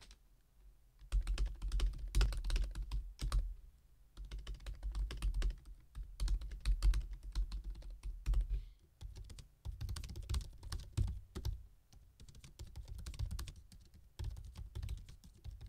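Typing on laptop keyboards: first on a 2016 13-inch MacBook Pro's butterfly keyboard, then, after a short pause about nine seconds in, on a 2020 13-inch MacBook Pro's scissor-switch Magic Keyboard. The key clicks come in quick runs with brief pauses, picked up close to the keys.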